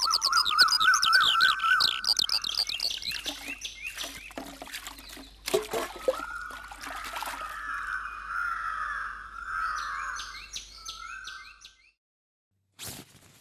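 Many birds chirping and calling in a morning chorus, with quick repeated chirps and a longer warbling call in the middle, fading out near the end.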